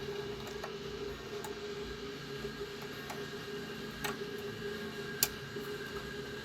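A steady electrical hum with a few sharp, small clicks, the clearest about four and five seconds in.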